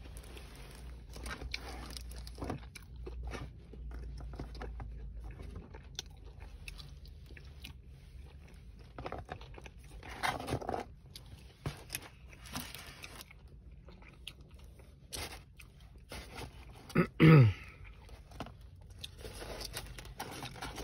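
Close-up handling of a foam takeout clamshell and small plastic sauce cups, with scattered clicks, rustles and crunches of fried chicken being eaten. About 17 seconds in there is one loud, short sound sliding down in pitch.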